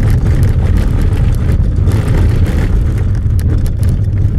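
Car driving on a rough dirt track, heard from inside the cabin: a loud, steady rumble of tyres and suspension with scattered knocks and ticks.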